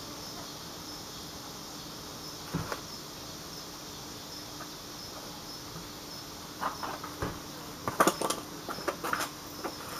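Scattered clicks and rustles of copper wire being twisted tight around fiberglass screen on a plastic corrugated drain pipe, sparse at first and busiest in the last few seconds. Behind it, insects chirp steadily at an even pace.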